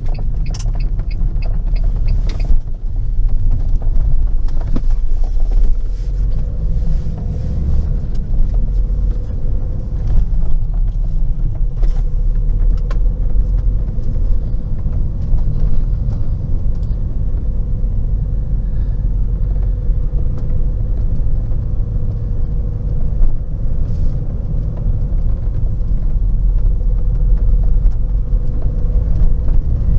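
Car running with a steady low rumble and a faint, even hum above it. A quick run of evenly spaced ticks sounds during the first couple of seconds.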